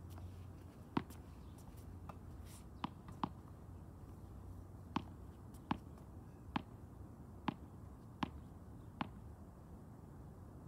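Tennis balls being struck by rackets and bouncing on the court. About nine sharp pops come at uneven intervals, the tightest run spaced under a second apart in the second half.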